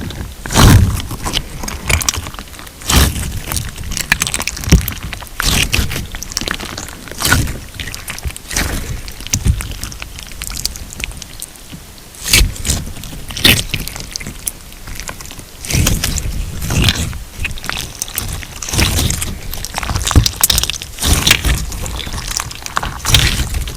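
Hands squishing and pressing a thick putty-style crunch slime mixed with pink glitter plate pieces, making irregular crackles, pops and crunches. It goes quieter for a couple of seconds about halfway through.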